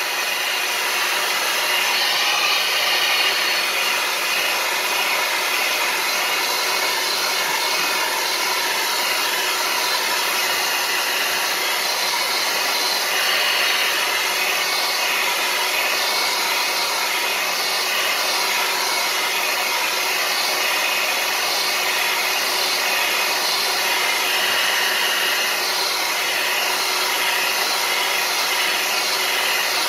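Hair dryer blowing steadily on one setting, a constant rushing noise with a faint motor hum, heating the adhesive around a smartphone's screen to soften it for removal.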